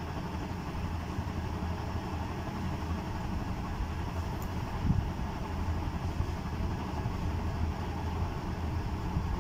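Steady low background hum, with a single soft knock about five seconds in.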